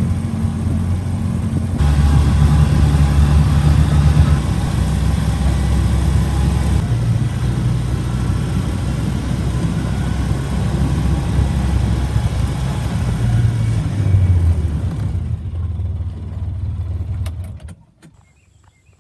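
A motor vehicle engine running steadily, its pitch shifting in a few steps, then cutting out shortly before the end.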